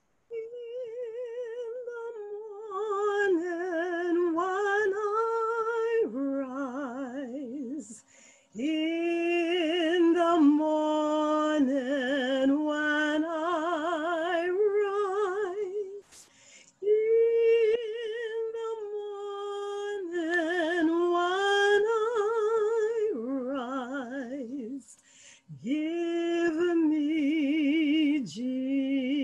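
A woman singing solo and unaccompanied, holding long notes with wide vibrato. She breaks between phrases three times.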